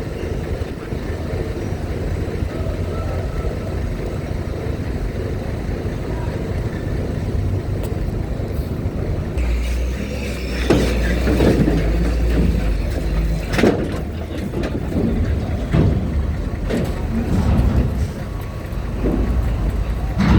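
Vehicle engines running as cars and trucks board a ferry. A heavier engine rumble comes in about halfway through, followed by a series of sharp knocks and clanks.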